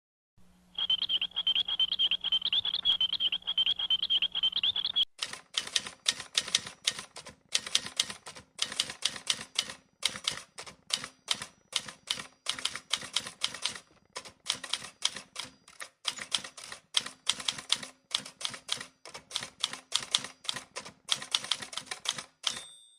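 Typewriter keys striking in rapid, uneven bursts of typing. For the first five seconds a steady high whine and a low hum run under the clicks. Near the end a short bell ding rings, the typewriter's margin bell.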